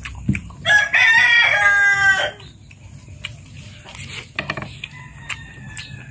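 A rooster crowing once, a loud call of about a second and a half. Light clicks from a spoon and chewing sound before and after it.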